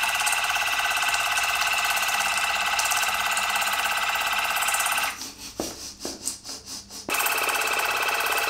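Cordless water flosser's pump running with a steady, fast-pulsing buzz as it shoots its water jet. The buzz stops for about two seconds around the middle, then starts again.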